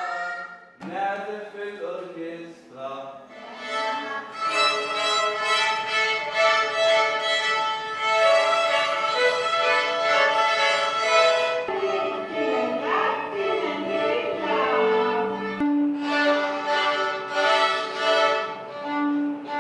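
Violin music with bowed strings playing. The music changes abruptly several times, with sliding notes in the middle stretch.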